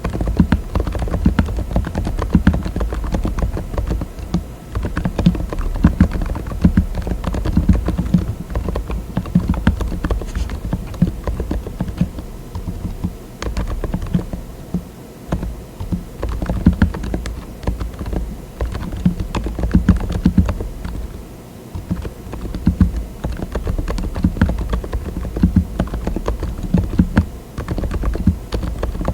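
Steady typing on a mechanical keyboard fitted with TTC Silent "Bluish White" tactile switches: a fast, continuous run of dampened, deep keystrokes with a couple of short pauses.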